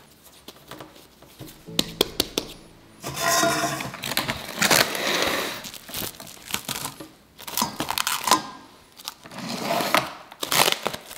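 Plastic cling wrap crinkling in several bursts as it is handled and stretched over a stainless steel mixing bowl, with small clicks and taps in between.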